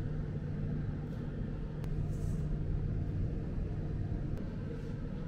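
Steady low mechanical hum with a few faint ticks.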